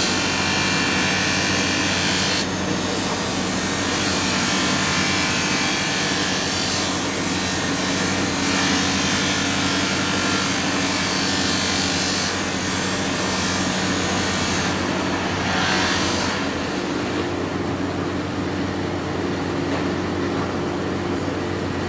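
Motor-driven grinding wheel running with a steady hum while the edge of a steel chef knife is ground against it, a hissing scrape that swells and eases as the blade is pressed and drawn along the wheel.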